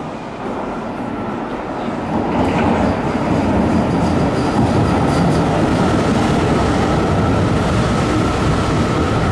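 Yokohama Municipal Subway Green Line 10000-series linear-motor train pulling into the station. Its running noise grows louder about two seconds in as it reaches the platform, then holds steady, with a thin high whine throughout.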